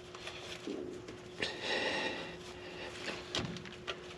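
A man straining and breathing hard while wrestling a heavy part into place, with a couple of light clicks near the end.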